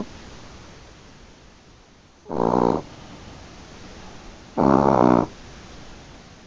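A sleeping Chihuahua snoring: two snores about half a second long each, a little over two seconds apart.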